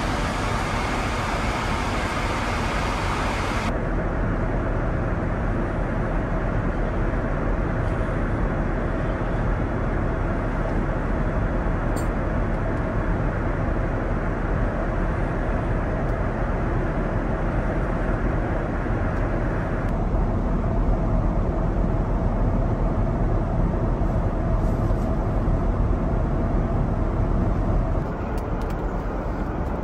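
Steady cabin noise of an Airbus A350-1000 airliner in cruise: a low, even rush of air and engine hum. Its tone changes abruptly a few times, about 4, 20 and 28 seconds in.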